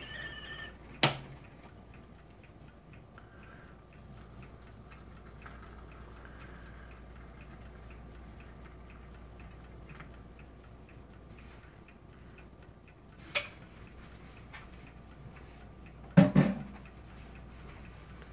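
Kitchenware clinking and knocking as tea is made, over faint ticking: a sharp click about a second in, another about two thirds through, and the loudest, a double knock with a short ring, near the end.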